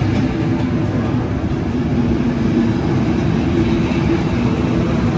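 Sleeper cars of an arriving passenger train rolling past a station platform: a steady rumble of noise with a low, even hum.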